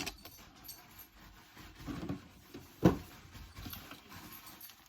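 Soft rustling and handling knocks, with one sharp thump just before three seconds in.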